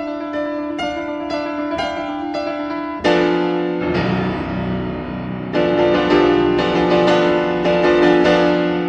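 Solo piano playing: light, evenly repeated notes over a held low note, then a sudden loud chord about three seconds in opens a fuller, louder passage, with another strong entry a little past halfway.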